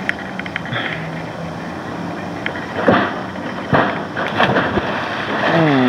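A springboard diving board bangs sharply twice, about three seconds in and again a moment later, as a diver bounces and takes off. Near the end a loud yell slides down in pitch, over a steady low hum.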